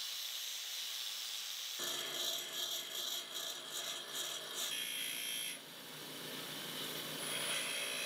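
A high-speed steel tool bit is being ground to shape: first against an angle grinder's disc, then, from about two seconds in, pressed by hand against a bench grinder's wheel. It makes a steady grinding hiss, which becomes fuller in tone when the bench grinder takes over and shifts again briefly near two thirds of the way through.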